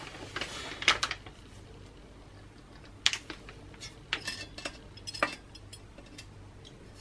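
Hand-held edge shrinking pliers squeezed onto the flanged lip of a curved sheet-metal panel. Scattered sharp metallic clicks and clinks come as the jaws grip and gather the stretched edge to tighten the curve.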